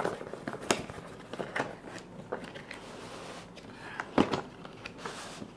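Cardboard delivery box being handled and opened by hand: scattered rustles, scrapes and clicks, with one sharper knock about four seconds in.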